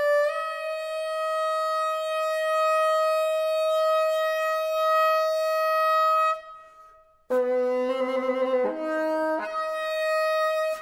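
Solo bassoon holding a long high note for about six seconds, which then dies away into a brief silence. A sudden loud attack follows on lower notes, with several pitches sounding together, before the high note returns near the end.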